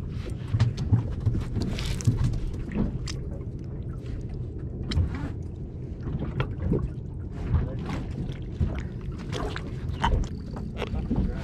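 Ambient sound aboard a small fishing boat on the water: a steady low rumble with many scattered knocks and clicks.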